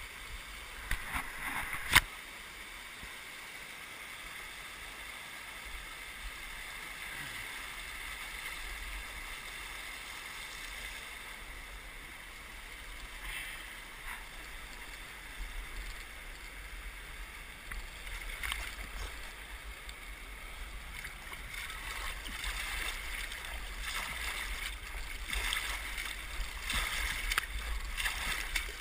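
River water rushing over rocks in rapids, a steady wash of noise. About two seconds in there is a sharp click. Later there are splashes and sloshing close to the microphone, growing louder near the end.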